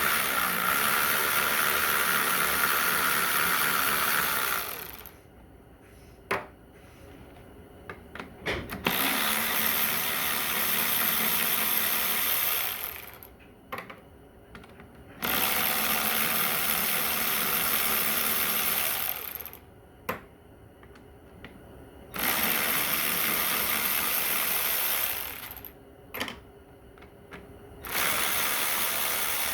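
A handheld power tool spinning out transmission bolts in five runs of about four seconds each, with small metallic clicks and clinks of parts between runs.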